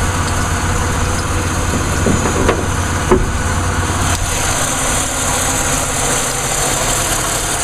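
The 3400 V6 of a 1999 Pontiac Grand Am GT idling steadily, heard with the hood open, warm from a recent drive. A few light clicks and knocks come about two to three seconds in.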